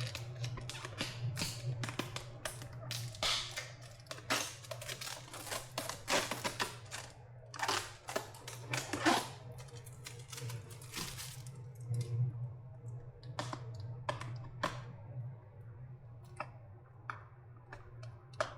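Tape and insulation on a battery pack being cut and peeled off by hand: a dense run of irregular crackles, clicks and tearing that thins out to scattered clicks in the second half, over a steady low hum.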